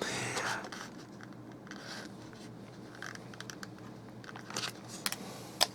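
Faint handling noises from a phone repair: soft crinkling with scattered small clicks and ticks, and one sharper click near the end, as the iPhone and its new lithium battery are handled.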